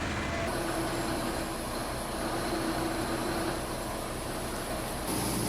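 Heavy machinery running: a steady engine-and-machine rumble with a faint held tone. The sound changes abruptly about half a second in and again near the end.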